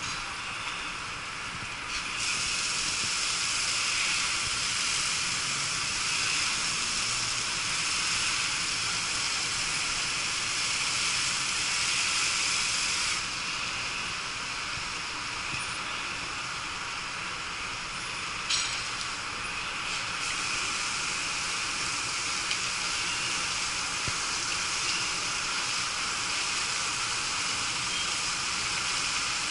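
Fire hose spraying water onto a burning city bus: a steady rushing spray of water and steam with no pitch to it. It gets louder about two seconds in, drops back a little about halfway through, and rises again about two-thirds of the way through.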